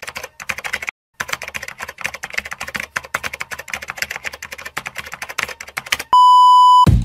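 Rapid typing clicks, with a brief pause about a second in. Near the end the typing stops and a loud steady test-tone beep, the kind played over TV colour bars, sounds for under a second.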